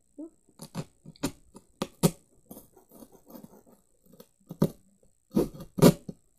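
Knife sawing through a cardboard box: irregular crunching strokes in two spurts with a lull between, loudest near the end.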